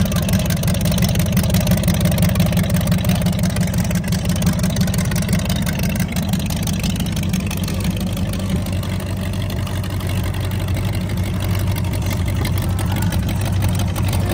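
Fiat 312R tractor's engine running steadily through short open straight-pipe exhaust stacks, a fast, even rumble of firing pulses that holds at one speed.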